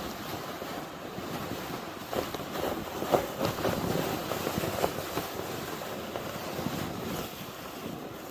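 Wind rushing over the microphone, mixed with irregular crunches of snow, then cutting off suddenly at the end.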